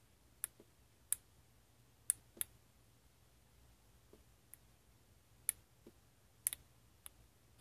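Faint, scattered small clicks, about seven in all, from fingers and fingernails handling the tiny parts of a disassembled phone camera module.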